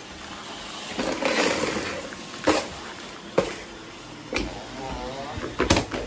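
Robot vacuums running with a steady hum, broken by a brief hissing rustle and several sharp knocks as feet cross dry rice grains scattered on a hard floor.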